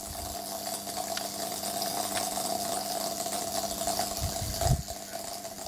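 Failed motor run capacitor from a Comet KX1400 pressure washer, on mains power and burning out internally, hissing as it jets out smoke, over a steady electrical hum. A brief low rumble of wind on the microphone comes a little after four seconds in.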